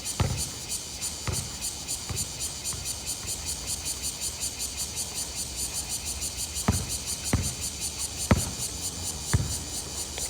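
Steady, rapid high-pitched chirring, like crickets or other insects, with several dull thuds, a few near the start and more toward the end.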